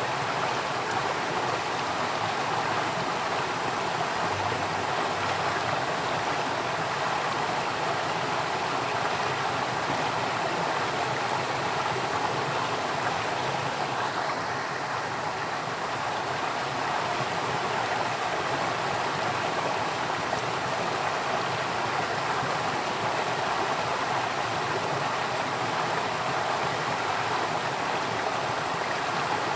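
Running water flowing steadily in an even, unbroken rush with no change in level.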